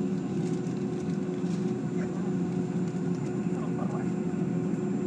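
Steady hum of a Boeing 757-200's cabin air system while the jet is parked at the gate, with one steady tone over the low drone. Faint passenger chatter and a few light clicks sit underneath.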